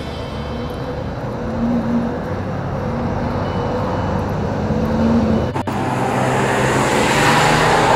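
Road traffic running, with a vehicle passing close and growing louder near the end.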